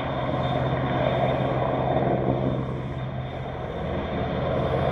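AgustaWestland AW101 helicopter hovering: a steady drone of rotors and turbines with a low hum, swelling and easing a little in loudness.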